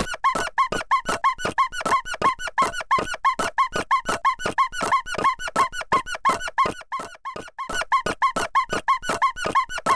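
A rapid, even run of short squeaky chirps, about four to five a second, each bending up and back down in pitch: a cartoon squeak sound effect.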